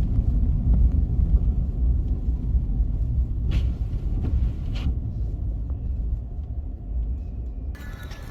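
Deep, uneven rumble of strong blizzard wind buffeting the microphone, rising and falling in gusts.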